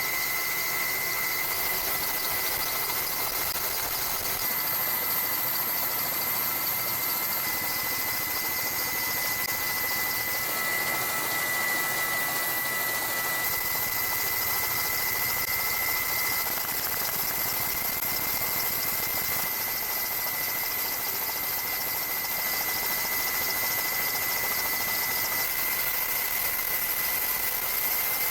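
Steady engine noise with a constant high-pitched whine over a hiss, holding level throughout.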